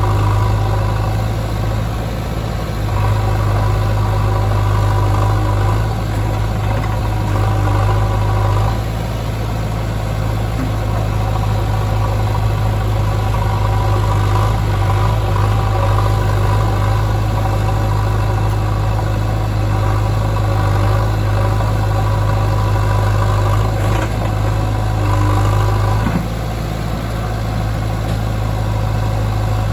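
Diesel engines of a JCB 3DX backhoe loader and a John Deere 5050D tractor running steadily, the engine note swelling and easing a little several times as the backhoe works.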